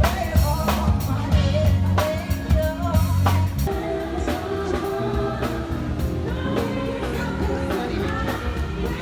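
Background pop song with a sung vocal over a steady drum beat and bass.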